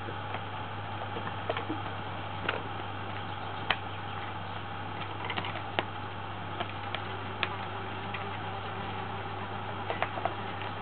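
Scattered light taps and scratches of kittens' paws and claws on the rug, floor and furniture as they play, irregular and a few each second at most, over a steady hiss and low hum.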